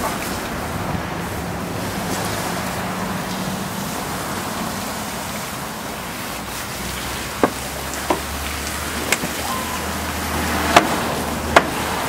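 Water poured from a bucket and a watering can onto a hot iron tyre on a wooden cart wheel, splashing and hissing as it cools and shrinks the tyre onto the wheel. A few sharp knocks come in the second half.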